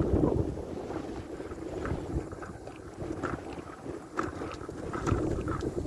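Wind buffeting the microphone while riding a bicycle, a steady low rumble with a few faint clicks from the bike.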